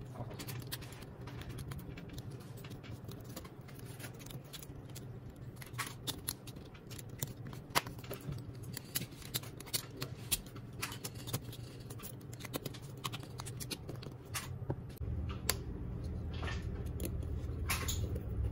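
Irregular small clicks and taps of a smartphone's plastic loudspeaker module and frame parts being pressed and seated by hand, over a steady low hum that grows louder about 15 seconds in.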